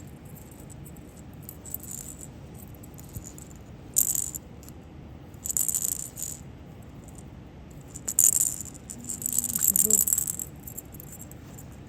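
Short bursts of metallic rattling and jingling from a green-cheeked conure's cage, about four times, as the bird shakes and works at something in it.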